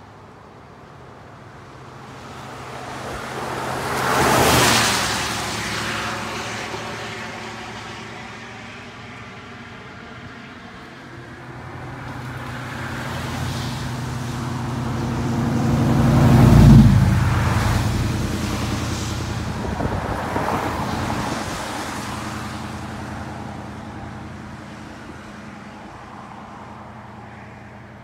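Road traffic: vehicles passing one after another, each swelling up and fading away. One passes about four seconds in, a louder one with a steady low engine hum about seventeen seconds in, and another soon after.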